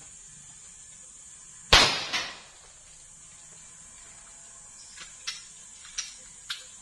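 A single 9mm Glock 17 pistol shot about two seconds in, sharp and echoing, followed half a second later by a second, smaller crack. Several faint ticks come near the end.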